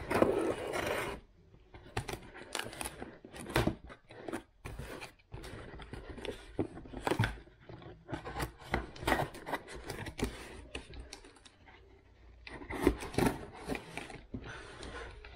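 A parcel being opened by hand: packaging tape and cardboard tearing near the start, then irregular scraping, rustling and small clicks as the box and packing are handled.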